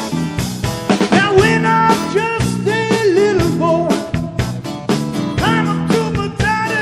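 Rock band playing a swamp-rock song with guitar and drums, a lead singer coming in about a second in.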